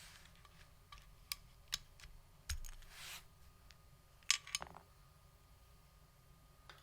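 A few isolated clicks and taps on a mechanical keyboard with linear switches, irregularly spaced rather than a typing rhythm, with a short rustle about three seconds in.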